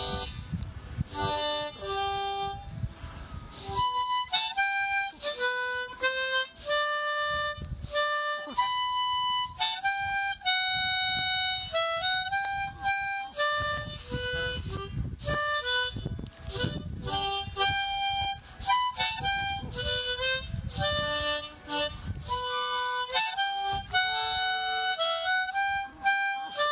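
Harmonica playing a tune, one melody note after another with quick changes of pitch and short gaps between phrases.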